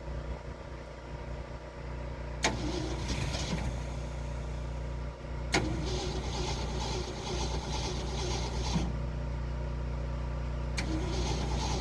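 1972 Ford F-250 engine running steadily. Three times a sharp click is followed by a few seconds of hissing.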